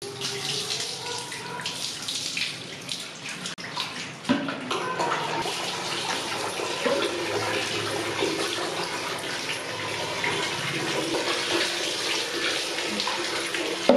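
Water poured from a mug over long hair, splashing and streaming down steadily.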